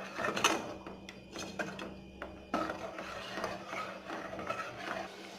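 Steel ladle stirring a thick curry in an aluminium pot, scraping and knocking against the pot in irregular clicks, over a steady low hum.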